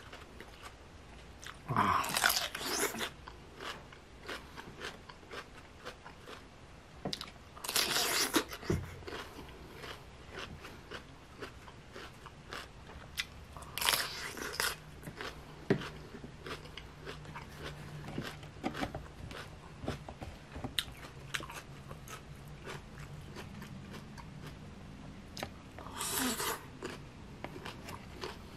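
A person eating crunchy pickled cucumber and sour green mango dipped in chili sauce, close to the microphone: about four loud crunching bites, with chewing between them.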